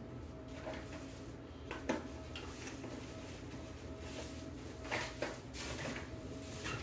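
Small knocks and clinks of kitchen utensils and dishes being handled on a counter, with a sharper knock about two seconds in and a few more about five seconds in, over a faint steady hum.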